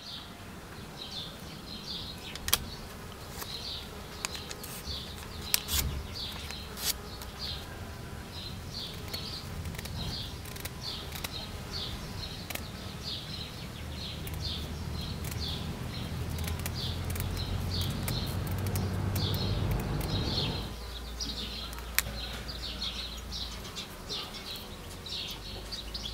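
High-pitched chirping repeated about every half second, with a few sharp clicks scattered through it. A low rumble builds from about halfway through and stops abruptly about three-quarters of the way in.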